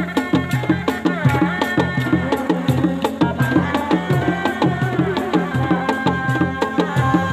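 Sundanese traditional percussion: rope-laced barrel drums (kendang) struck by hand and stick in a fast, steady pattern of alternating low and higher drum tones, with a sustained, bending melody line above them.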